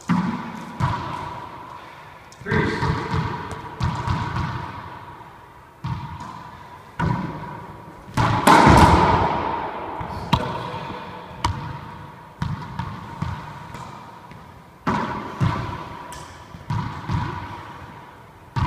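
A racquetball being hit and bouncing off the walls and floor of an enclosed court: a string of sharp smacks about one to two seconds apart, each with a long echo, the loudest about eight seconds in.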